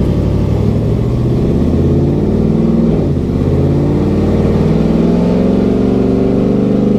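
Supercharged, cammed V8 of a Camaro ZL1 with its exhaust diverters fully open, effectively running off open headers with no restriction, heard from inside the cabin with the windows up while the car pulls away. Loud exhaust note that climbs in pitch, dips about three seconds in, then climbs again.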